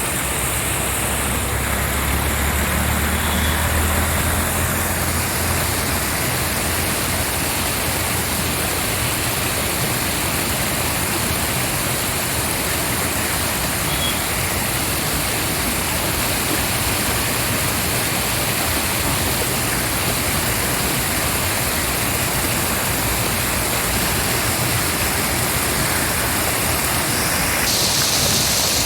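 Heavy rushing water, a loud steady even wash of noise, with a low rumble underneath during the first few seconds.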